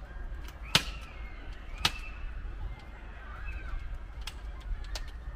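Someone climbing a ladder, with sharp knocks as hands and feet meet the rungs: four separate knocks, the loudest about three-quarters of a second in.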